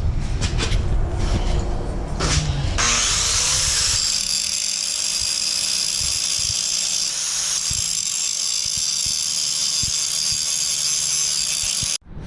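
Power grinder grinding a corner off a metal trailing arm: a steady, high-pitched grinding whine that starts about three seconds in, after some clatter of handling, and cuts off abruptly near the end.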